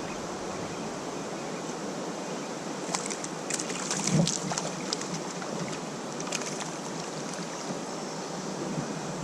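River water rushing steadily past a kayak, with a few short sharp knocks and splashes in the middle.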